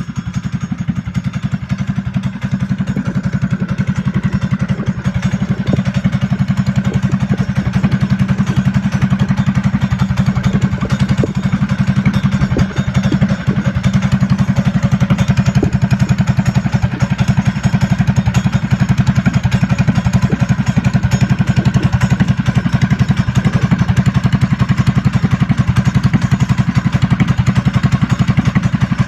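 Trailmaster Hurricane 200X mini bike's 196cc single-cylinder four-stroke engine, fitted with an aftermarket stage 1 exhaust, idling steadily with an even, fast firing beat.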